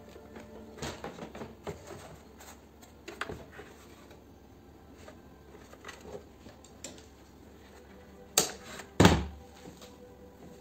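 Plastic-bodied pressure washer being handled on a metal workbench: its power cord rustling and small knocks, then two sharp knocks about eight and nine seconds in, the second a heavy thump as the machine is laid over on its side.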